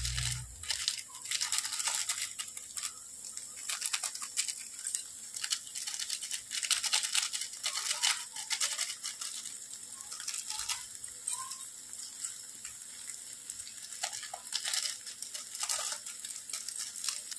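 Foil seasoning sachet of Maggi masala crinkling and crackling in the fingers as it is squeezed and shaken out over noodles in a pan: a dense, irregular run of small crackles.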